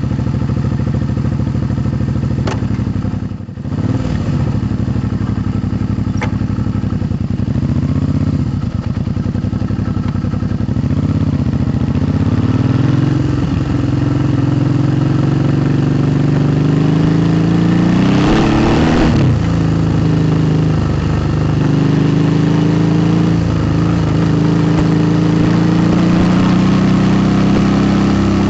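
2008 Suzuki V-Strom 650's V-twin engine with Delkevic aftermarket exhaust, freshly started and running, then pulling away with the revs climbing and dropping through several gear changes. A brief rush of noise about two thirds of the way through.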